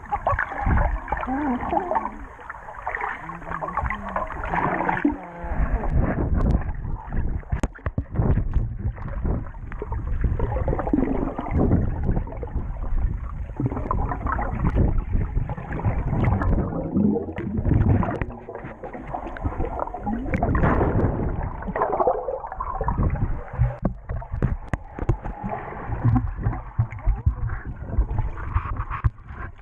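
Pool water heard underwater: muffled churning, bubbling and splashing from swimmers moving around, with a low rumble and scattered knocks.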